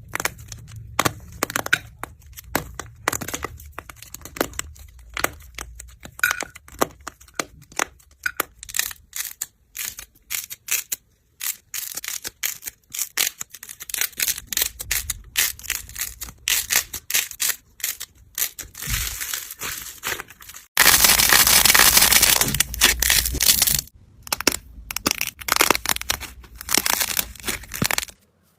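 Slime being squeezed and pressed by hand, giving a fast, irregular run of crackles and pops, with a denser, louder stretch of crunching for about three seconds near the end.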